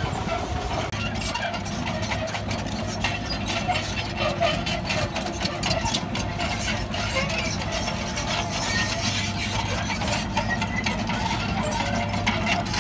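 Diesel engines of heavy construction machinery running steadily with a low drone, with frequent irregular metallic clanks and squeaks.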